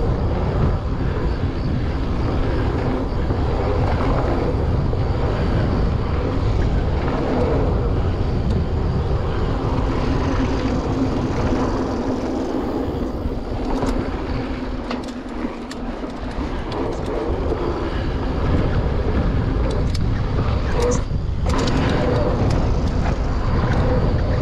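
Mountain bike rolling fast down a loose-gravel trail: steady rumble of tyres on gravel and wind on the bike-mounted camera, with a few sharp clicks and rattles, easing briefly a little past halfway.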